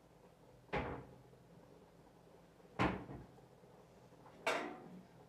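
Three sharp knocks about two seconds apart, each ringing briefly; the middle one is the loudest.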